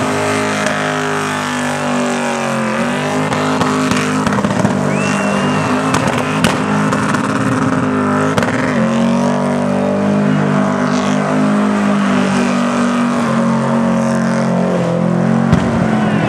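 Van engine held at high revs in a burnout, with the rear tyres spinning against the pad; the revs dip briefly about three seconds in and again around eight and a half seconds, then climb back.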